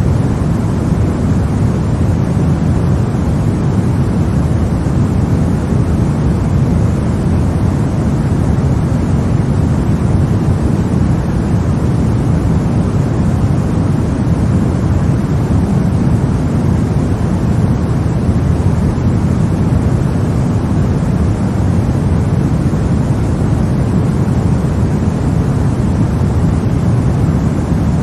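Steady sleep-aid white noise played for a baby: an even, deep rushing hiss, heavier in the low end, that never changes.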